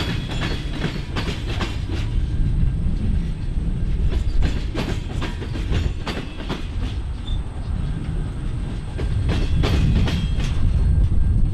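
Freight train cars rolling across a railroad diamond crossing: wheels clattering in irregular clacks over the crossing, over a steady rumble. The last car, a boxcar, goes by near the end.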